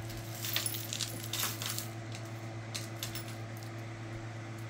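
Small metal pieces of costume jewelry clinking against one another as they are handled and sorted, with a run of light clicks mostly in the first two seconds. A steady low hum runs underneath.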